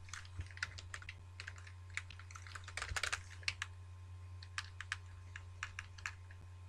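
Computer keyboard keys being typed in irregular short taps, with a quick run of strokes about three seconds in. A steady low hum runs underneath.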